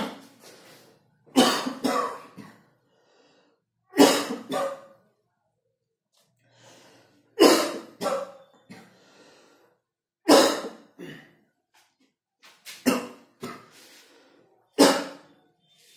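A man coughing in a fit: about seven bouts of sharp coughs every two to three seconds, some bouts with two or three coughs in quick succession.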